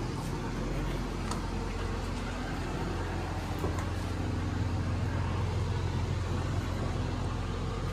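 Steady low engine hum with a noisy rumble, as from a running motor vehicle.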